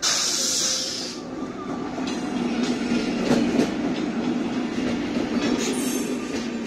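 An Indian Railways express train passing close by: the electric locomotive goes past with a loud rush of hiss in the first second, then the coaches follow in a steady rumble with the wheels clacking over the rails.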